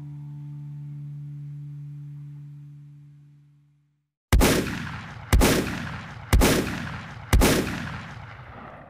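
The last acoustic guitar chord rings out and fades away over the first few seconds. Then, after a brief silence, four loud gunshot sound effects go off about a second apart, each ringing out before the next.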